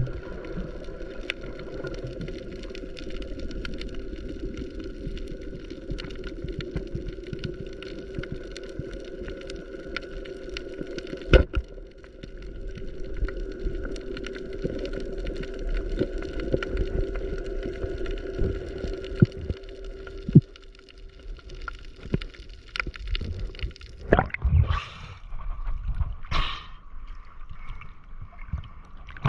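Heard underwater: a boat's motor hums steadily, with scattered clicks throughout. The hum fades out about two-thirds of the way in, and bursts of gurgling water and bubbles follow near the end.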